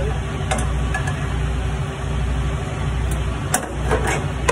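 A few sharp metal clinks of hand tools on the truck's exhaust aftertreatment hardware, one near the start and a cluster near the end, over a steady low hum.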